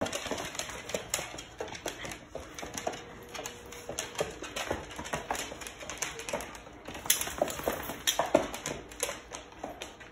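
A Rottweiler puppy's claws clicking and tapping irregularly on a hardwood floor, several clicks a second, as the dog steps and shifts about.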